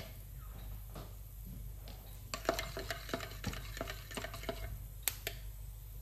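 A cooking utensil stirring in a pot, with a quick run of light clinks and knocks against the cookware in the middle and one sharper knock near the end.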